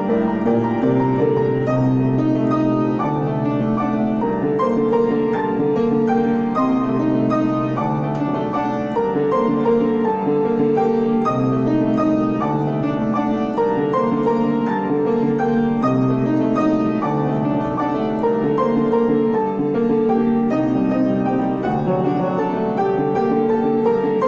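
Piano music: flowing notes over low bass notes that change about every two seconds.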